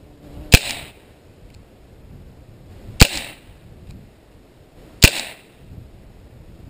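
Beretta PX4 Storm CO2 pellet pistol firing three shots, sharp cracks about half a second, three seconds and five seconds in.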